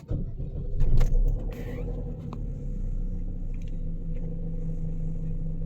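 Car engine starting and settling into a steady idle: it catches at once, flares about a second in, then runs evenly. The engine has a misfire fault that the scanner logged in cylinders 2 and 4 (code P0300).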